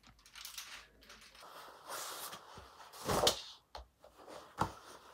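Quiet handling sounds: soft rustling, a louder rustle about three seconds in, then two short clicks.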